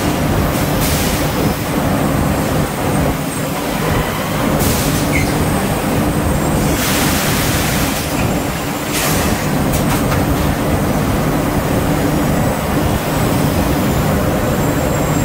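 Orbital stretch-wrapping machine running, its rotating ring winding plastic film around a coil spring: a steady mechanical drone with a low hum, with short hissing bursts several times, the longest about seven seconds in.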